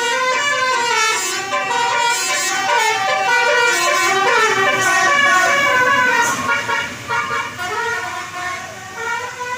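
A bus's telolet horn, a set of multi-tone electric horns, playing a quick tune. Several notes sound at once and step rapidly from pitch to pitch, getting quieter in the last few seconds.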